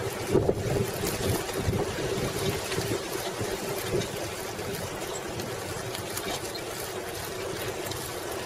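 Steady wind rush on a bike-mounted microphone with the rolling noise of a 1995 Schwinn Classic Cruiser's tyres on a paved path as it is ridden along.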